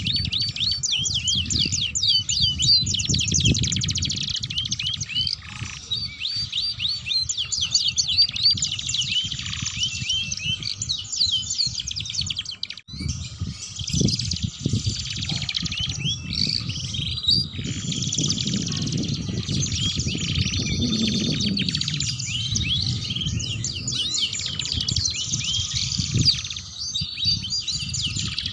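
Domestic canaries singing without pause: long, fast rolling trills and rough chattering twitter, with a low rumble underneath. The song breaks off for a moment about 13 seconds in, then carries on.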